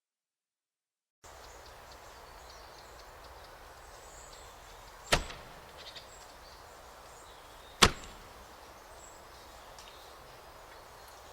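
Two sharp clicks of hard objects over a steady low room noise, about two and a half to three seconds apart, with a few faint small ticks around them; the room noise comes in about a second in, after digital silence.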